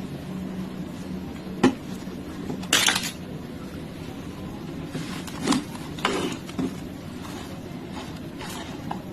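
Handling noise from unboxing a blind-box plush toy: a sharp tap about a second and a half in, a short crinkling rustle near three seconds, and a few more knocks and rustles later, over a steady low hum.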